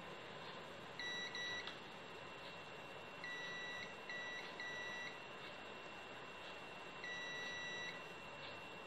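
Digital multimeter's continuity buzzer beeping in short, uneven bursts as the probes touch points on the amplifier board: about six beeps of one pitch in three groups, the last one the longest. It is being used to check for short circuits after a new output transistor has been soldered in. A faint steady high hum runs underneath.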